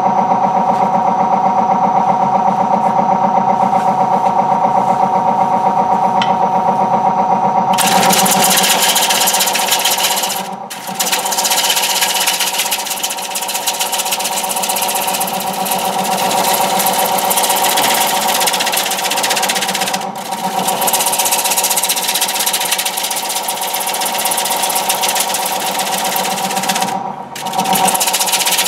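Wood lathe running at about 475 RPM with a steady motor hum. About eight seconds in, a turning tool starts cutting the face of the spinning basswood platter, adding a loud rough hiss of shavings that breaks off briefly three times.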